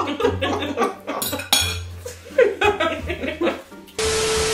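Metal forks clinking against plates. About four seconds in, a sudden loud burst of TV-static hiss with a steady beep tone cuts in: a no-signal glitch sound effect.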